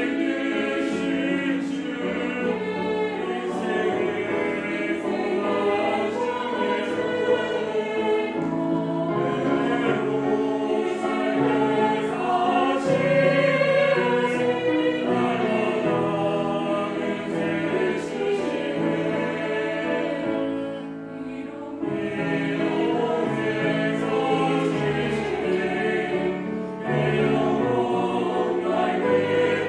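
Mixed choir singing a hymn in Korean, in sustained harmony. The sound drops briefly between phrases about two-thirds of the way through.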